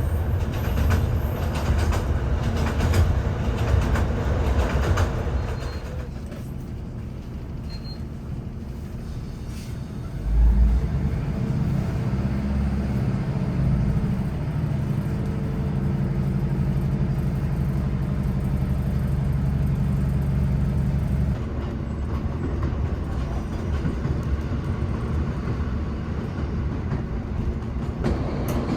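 Diesel passenger train running, with rumble and rattle from the wheels and carriage. It quietens for a few seconds, a heavy thump comes about ten seconds in, and then a steady engine drone sits over the rumble for about nine seconds.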